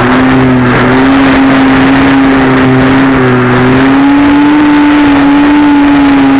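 Onboard E-Flite Park 450 electric motor and APC 7x5e propeller of a Multiplex Easy Star II in flight, a steady pitched drone whose pitch creeps up a little about four seconds in, over rushing wind noise.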